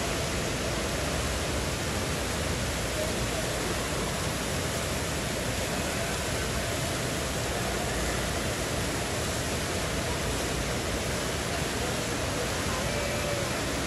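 Fountain jets in an indoor pool splashing down into the water: a steady rush of water.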